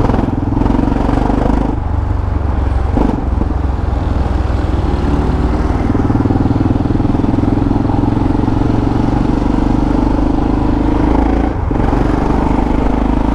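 Yamaha XT600E's single-cylinder engine running loud through an old Coyote aftermarket exhaust while the bike is ridden. The note is steady, with a few brief breaks around two and three seconds in and again near the end.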